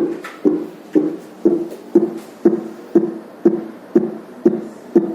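Fetal Doppler loudspeaker playing a simulated fetal heartbeat set to 120 beats per minute: an even train of short, low whooshing thumps, about two a second, each sharp at the start and fading quickly.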